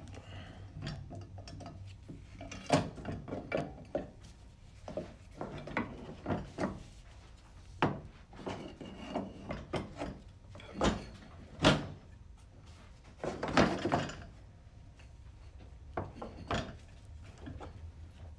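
Irregular metallic clinks and knocks as a CVT pulley assembly, its belt and the holding tool are handled and set into the aluminium transmission case. The sharpest knocks come about 11 and 12 seconds in, with a short run of clatter around 13 to 14 seconds.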